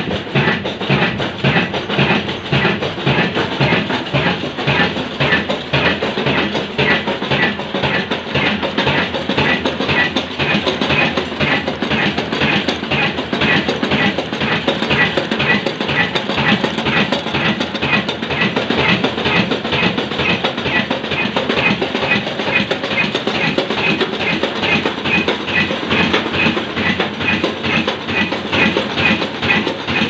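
Fine Mughal Son 22 HP slow-speed diesel oil engine, rated at 275 rpm, running steadily with an even, rhythmic knocking beat.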